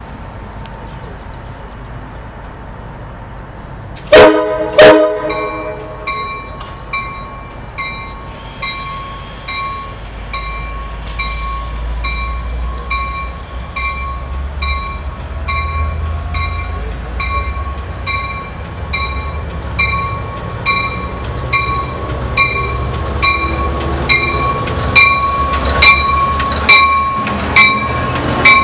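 Amtrak Pacific Surfliner train departing: the horn on the leading cab car gives two short blasts about four seconds in, the signal that the train is proceeding. A bell then dings steadily about once a second while the low rumble of the F59PHI diesel-electric locomotive pushing from the rear builds. Near the end the wheels clack over the rail joints as the bilevel cars roll past.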